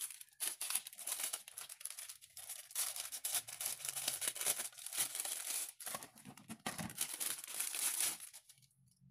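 Plastic packaging crinkling and tearing as an LED light is unwrapped by hand, a dense run of crackles that stops shortly before the end.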